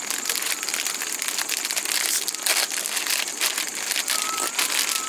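Irregular crinkling and crackling of packaging being handled, over a steady high-pitched hiss.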